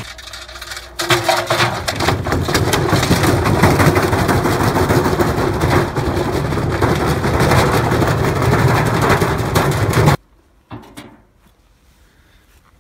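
Tricity Bendix 1000 washing machine running hard and shaking itself apart: a loud, continuous clatter of knocks and cracks over a low rumble. It cuts off suddenly about ten seconds in, and one short knock follows.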